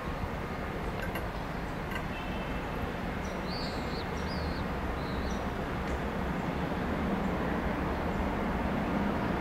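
A passenger train approaching slowly along the track: a steady rumble with a low hum, growing gradually louder toward the end. A few bird chirps come about four seconds in.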